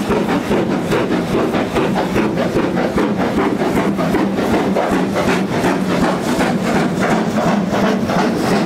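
GWR Hall class steam locomotive 6990 Witherslack Hall working hard with a train, its two-cylinder exhaust barking in quick, even beats from the chimney.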